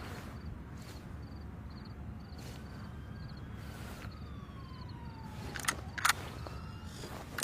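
Faint steady background noise with a distant siren-like whine sliding down in pitch, then two sharp clicks about half a second apart near the end.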